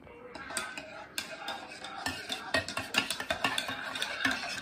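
Spoon stirring hot chocolate in a stainless-steel mug: rapid clinks and scrapes against the mug's sides, getting louder after the first second.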